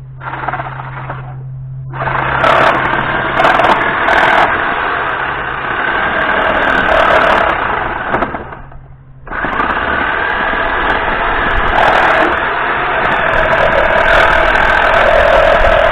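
Power tool motor running under load, cutting out briefly about two seconds in and again around nine seconds in, with a few sharp clicks along the way.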